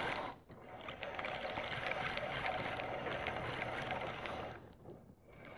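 Fishing reel cranked steadily, winding in line on a hooked trout, a fine ticking whir that stops about four and a half seconds in.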